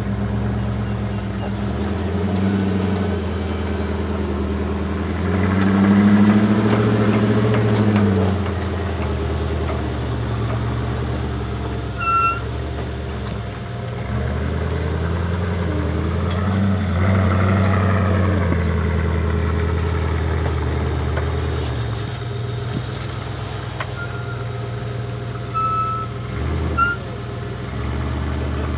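Engine of the Jolly Jumper proto trial truck, a 4x4 of about 200 kW, running low and steady as it crawls over rough ground. The revs rise and fall twice, about six seconds in and again around seventeen seconds. A few short high beeps sound near the middle and near the end.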